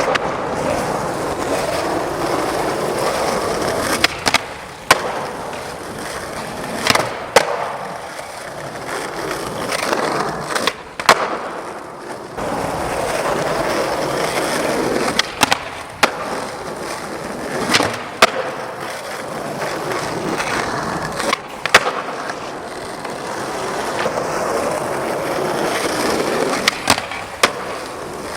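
Skateboard wheels rolling over pavement with a steady grind, broken by sharp wooden clacks of the board popping and landing about a dozen times.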